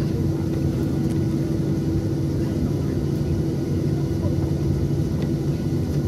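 Cabin noise of a Boeing 737-800 on the ground just after landing: its CFM56 engines and the rolling airframe give a steady low rumble with a steady hum over it.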